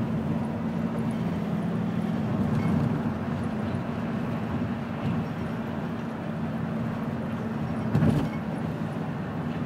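Steady road and engine noise heard inside a moving car's cabin: a low hum over tyre rumble, with one brief thump about eight seconds in.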